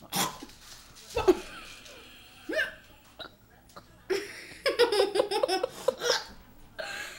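A kid hiccuping three times, about a second apart, then laughing in a quick run of giggles for about two seconds.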